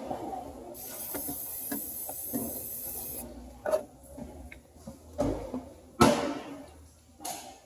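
Aerosol battery terminal protector sprayed onto the battery terminals, a steady hiss of about two and a half seconds, followed by a few sharp clicks and knocks from handling parts around the battery.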